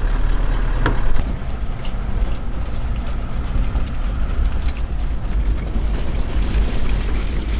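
Toyota LandCruiser Troop Carrier driving, with steady low engine and road noise. A single knock comes about a second in.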